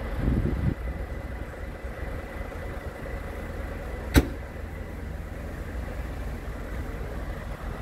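An engine idling with a steady low rumble, and a single sharp click about four seconds in.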